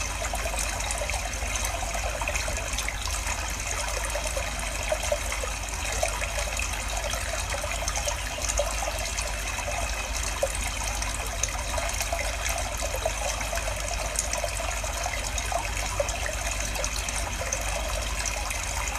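Mountain stream flowing steadily, with small splashes rising out of the continuous rush and a steady low rumble underneath.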